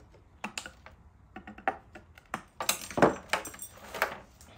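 Side cutters snipping and working the wires that tie a bonsai into its pot: a string of irregular sharp clicks and small metallic clinks.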